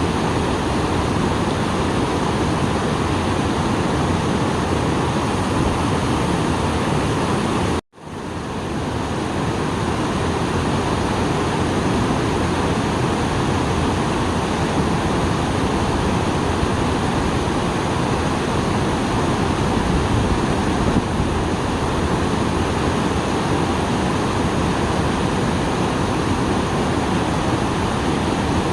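Small waterfall running full after rain: a steady rush of falling, splashing water. It cuts out for an instant about eight seconds in, then swells back up.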